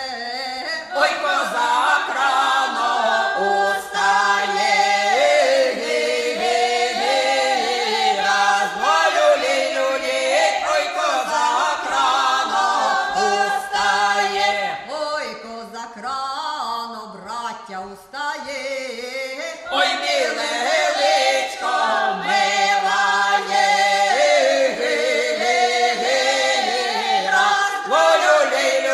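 Unaccompanied Ukrainian folk vocal group singing a spring song in parts, loud and full. About two thirds through the sound thins out, as a single lead voice starts the next line, and the group then comes back in together.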